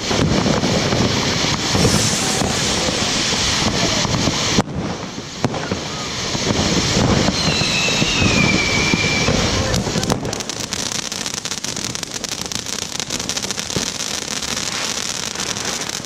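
Ground fountain firework spraying sparks with a steady hiss and crackle. A brief high whistle that falls in pitch comes about halfway through.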